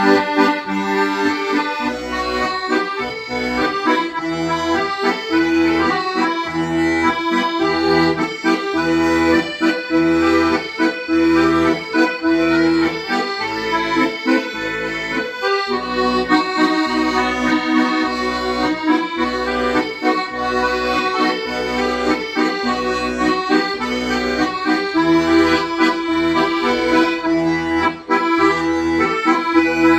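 Accordion playing a slow melody in held, reedy chords, with the left-hand bass notes sounding in a steady pulse of about one per second.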